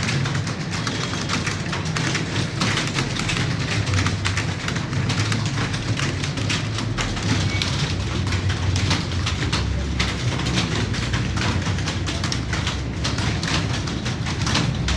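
Many computer keyboards being typed on at once: a dense, continuous clatter of key clicks over a low room hum.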